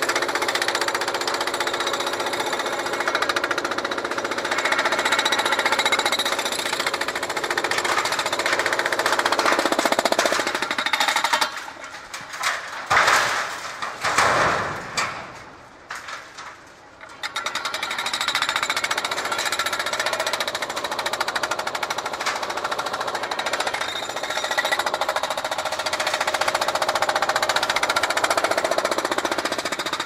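Remote-controlled hydraulic breaker hammering reinforced concrete in a rapid, continuous rattle. It stops for several seconds about a third of the way in, with a few separate loud noises in the gap, then resumes.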